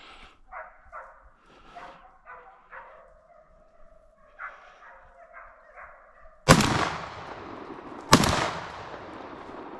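A hunting dog barking repeatedly, then two loud gunshots about a second and a half apart, each echoing away: the hunter firing at a wild boar that the hounds are chasing.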